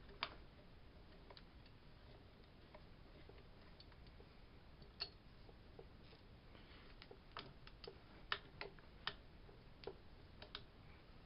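Faint, irregular metal clicks of a wrench and peg hardware as the scooter peg's bolt is worked tight, a single click about five seconds in and a cluster of them from about seven seconds on, over near silence.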